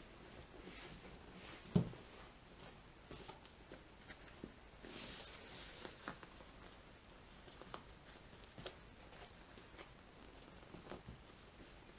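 Quiet handling of a motorcycle seat cover being stretched over its foam: faint rustling and scattered small taps, with one sharp knock about two seconds in.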